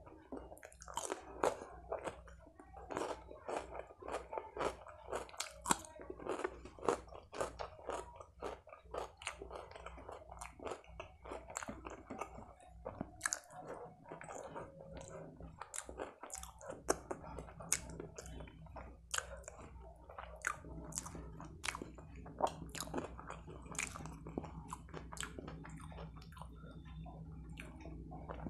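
Close-miked chewing and biting with wet mouth clicks and some crunching, as rice and curry are eaten by hand. The clicks come thick and fast at first and thin out in the second half.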